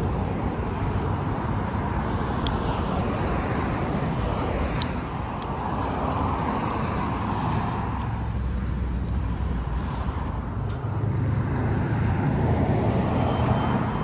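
Road traffic noise from cars driving along a multi-lane street, a steady rush that swells as vehicles pass, around the middle and again near the end.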